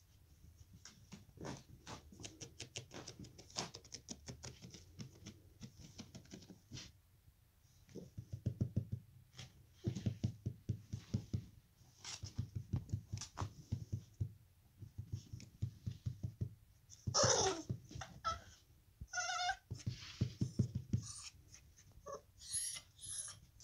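Basenji puppy playing on a fabric mat, pawing and scratching at it in rapid bouts, with claw clicks between them. A couple of short high-pitched cries come about two-thirds of the way in.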